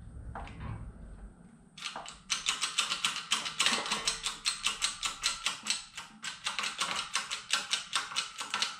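Hydraulic shop press being worked to press a new 6004 idler-wheel bearing into place: a couple of soft knocks, then from about two seconds in a fast, steady run of sharp metallic clicks, about five a second.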